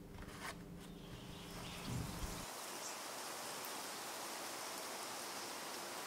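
Background music's held notes fading and cutting off about two and a half seconds in, over a steady, even hiss that carries on after.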